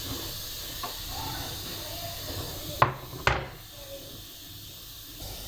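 Two sharp knocks about half a second apart, a little before the middle, over a steady low hiss.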